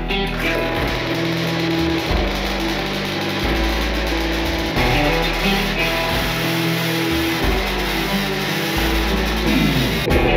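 Background rock music with guitar and a bass line that changes note every second or so.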